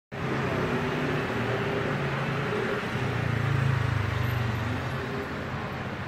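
Low engine rumble under a steady hiss, swelling about three seconds in and easing off again before the end.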